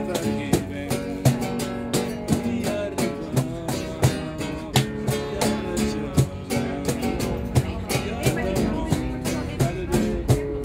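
Nylon-string classical guitar strummed in a steady rhythm, with sharp strokes about every 0.7 s, and a man singing along.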